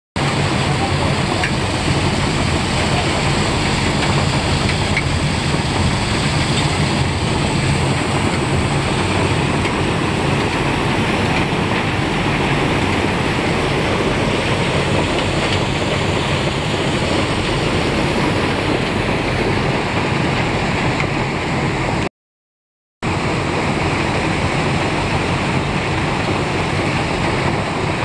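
Rock-crushing machinery running, a steady dense noise of machine and stone that breaks off into a short silence about six seconds before the end and then resumes.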